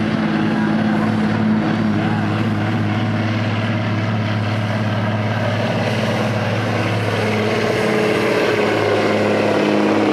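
Diesel engine of a street semi truck running hard under full load while pulling a weight sled, blowing black smoke. The engine note is loud and steady, with a higher note climbing slightly in the second half.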